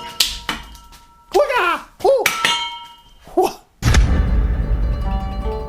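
A few sharp metallic clanks that leave ringing tones, with short voice-like sounds between them, then, about four seconds in, music with plucked guitar starts loudly.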